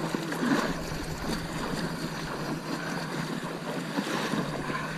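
Legs in waders wading through shin-deep shallow seawater, the water sloshing and splashing with each stride.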